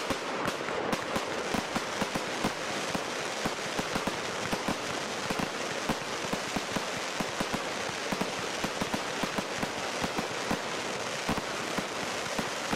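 Fireworks display: a dense, continuous crackle of many small pops over a steady hiss, with no single big bang standing out.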